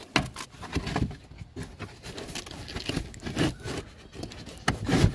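Rustling, scraping and irregular knocks as a car trunk's carpeted lining and trim panel are pulled off by hand to get at the hybrid battery, with a louder knock near the end.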